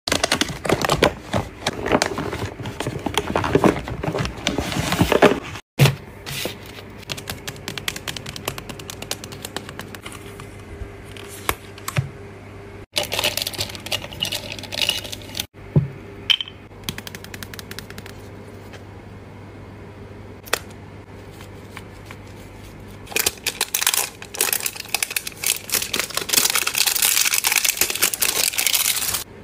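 Close-up handling sounds of skincare products: quick clicks, taps and scrapes in several short takes, with a denser hissing, scratchy stretch near the end.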